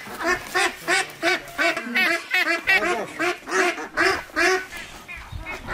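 Domestic waterfowl giving a run of short, repeated honking calls, about three a second, that stops near the end.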